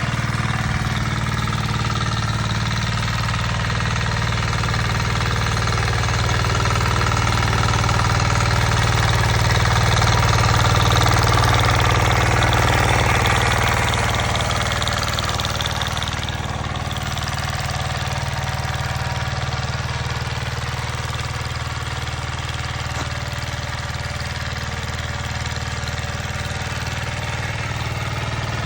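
Tractor engine running steadily while working a field, growing louder for several seconds around the middle, then settling back a little quieter.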